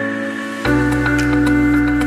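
Background music: held synth-like chords, with a fuller, louder chord and bass coming in about two-thirds of a second in, over light ticking percussion.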